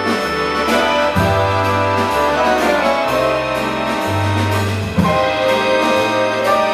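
Live ensemble of accordions with piano, bass and drums playing music: sustained accordion chords over a bass line that changes note about once a second, with a light steady drum beat.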